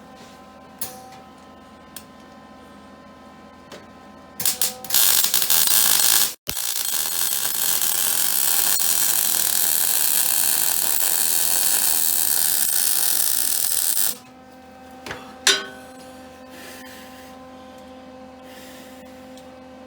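Electric arc welding on a steel ATV frame: the arc strikes about four and a half seconds in and runs briefly, breaks off for a moment, then runs again as a steady loud crackle for about seven and a half seconds before stopping. A steady hum and a few small clicks sit underneath before and after.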